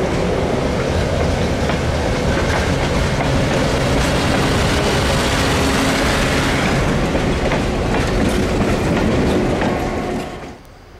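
A train passing close by: a passenger coach and a boxcar roll past with steady wheel-on-rail noise and scattered clicks, then the trailing diesel locomotive goes by. About ten and a half seconds in, the sound drops away abruptly to a much quieter background.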